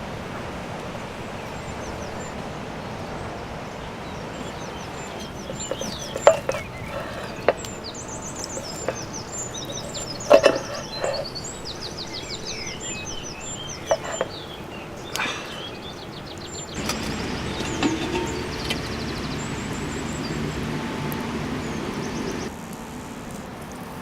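Outdoor ambience with small birds chirping and trilling, and a few sharp knocks. A louder low rushing noise comes in after about 17 seconds and stops suddenly near the end.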